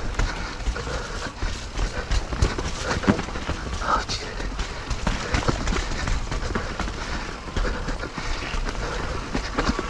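Mountain bike rattling down a rough, rocky trail: a steady run of irregular knocks and rattles from tyres and frame over rock and roots, over a low rumble.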